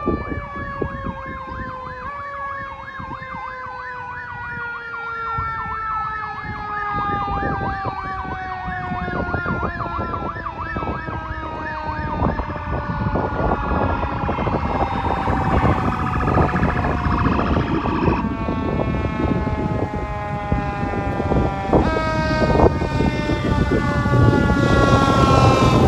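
Fire apparatus sirens approaching: a long siren tone sliding slowly down in pitch, overlaid for the first half by a fast warbling siren. The sound grows louder as the fire engine nears, with its engine noise rising near the end.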